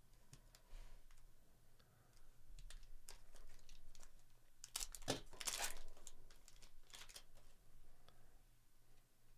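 Foil wrapper of an Upper Deck Artifacts hockey card pack being torn open and crinkled by hand, in scattered crackles that are loudest about five to seven seconds in.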